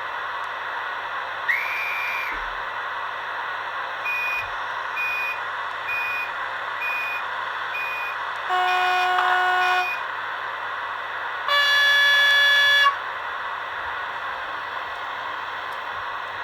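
Fleischmann model ICE's ESU LokSound 3.5 sound decoder playing train sounds through its small speaker over a steady hiss: a short rising tone, then a row of six short beeps about a second apart, then two horn blasts, the second one higher and louder.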